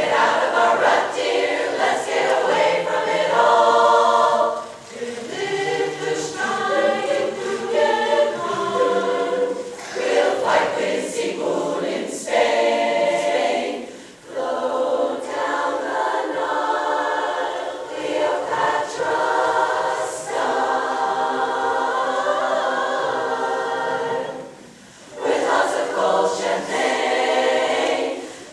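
Large women's chorus singing a cappella in harmony, phrase after phrase with short breaks between, the longest pause near the end.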